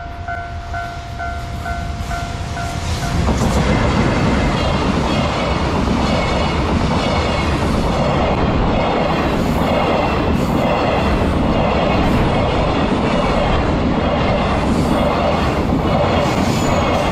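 A freight train of rail-carrying flatcars, hauled by an EF210 electric locomotive, running past a level crossing: loud, steady rumble of steel wheels on rails, with a regular clickety-clack as the wagons pass over the rail joints. A steady tone sounds at the start and stops about three seconds in, as the train noise swells.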